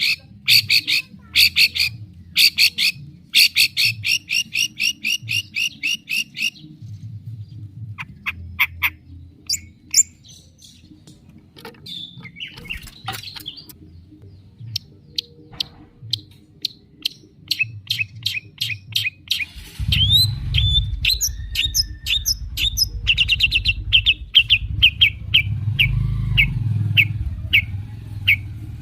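Long-tailed shrike (cendet) singing a loud, varied song: fast strings of sharp repeated notes alternating with assorted chirps and mimicked calls of other birds. A low rumble runs beneath the song in the second half.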